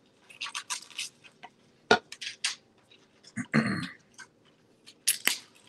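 Irregular clicks and light knocks of objects being handled near the microphone, with a sharp knock about two seconds in and a short clatter at about three and a half seconds, over a faint steady hum.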